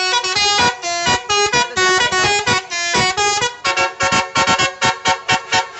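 Basuri musical 'telolet' bus horn playing a fast tune of short, clipped notes at many different pitches; about halfway through the notes come quicker and shorter.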